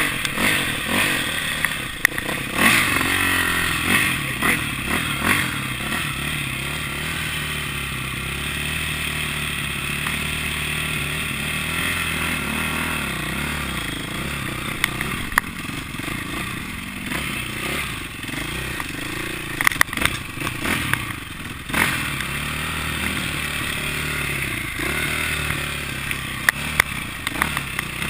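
KTM 450 dirt bike's single-cylinder four-stroke engine, revving up and easing off again and again as the bike is ridden over a rough dirt track. Sharp knocks and clatter come from the bike over the bumps, in clusters early on and again about two-thirds of the way through.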